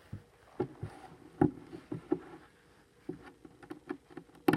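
Plastic LEGO bricks clicking and tapping as they are handled and snapped together: a string of short, irregular clicks, the loudest about a second and a half in and near the end.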